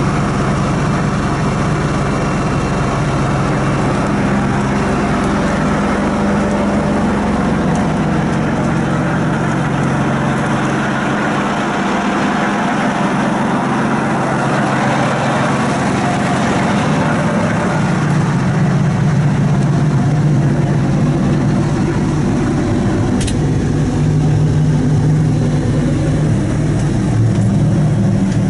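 John Deere 8220 tractor's six-cylinder diesel engine idling steadily.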